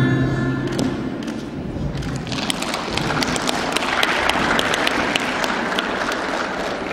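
Routine music tails off in the first second, then applause with many separate hand claps builds from about two seconds in and carries on.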